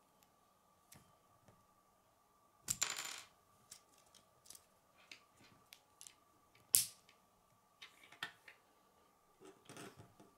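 K'nex plastic pieces clicking and clattering as they are handled and snapped together: scattered sharp clicks, with a short burst of rattling about three seconds in, a single sharp snap near seven seconds and another brief clatter near the end.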